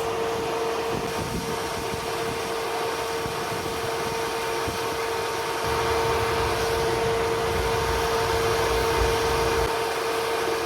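An engine running steadily, with a constant hum over a rumble that grows heavier about halfway through.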